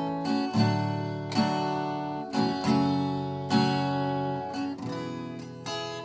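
Acoustic guitar strumming chords as a song intro, a strong strum about once a second with the chords left ringing between strums.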